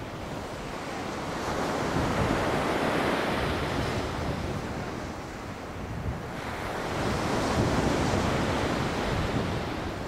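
Sea surf washing against the shore, swelling up twice, with wind buffeting the microphone.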